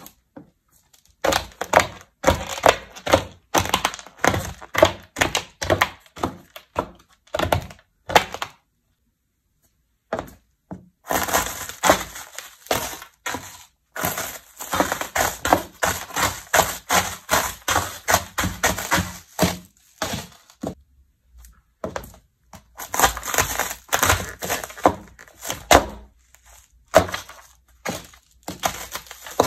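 Small, hard pieces of expired food crunching and cracking as they are crushed under a shoe on a hard floor: runs of many quick cracks lasting several seconds each, with short pauses about a third of the way in and again about two-thirds in.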